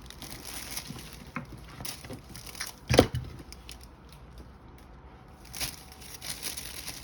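Gift wrap being handled and gathered around a basket, crinkling and crackling in scattered bursts, with one loud sharp crackle about three seconds in.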